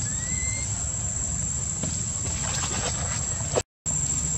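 Outdoor ambience of a steady high-pitched insect drone over a low rumble, with a short rising chirp near the start. The sound drops out completely for a moment near the end.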